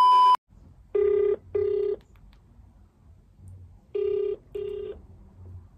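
Telephone ringback tone of an outgoing call: two double rings, each two short buzzing pulses, about three seconds apart. Just before them, a steady high beep cuts off.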